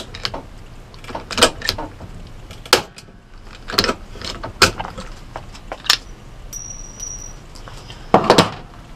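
Hand pop-rivet gun clacking as its handles are pumped, each squeeze pulling the mandrel of an aluminum blind rivet and spreading the rivet behind the hole. The sharp clicks come about once a second, with a short burst of clatter near the end.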